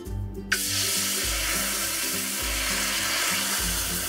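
Coconut milk sizzling as it is poured into a hot pan: a sudden hiss starting about half a second in, then holding steady.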